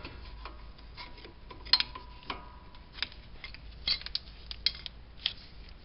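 Irregular light metallic clicks and knocks as a 2010 Mini Cooper's front brake caliper, its bolts removed, is worked loose off the rotor by hand.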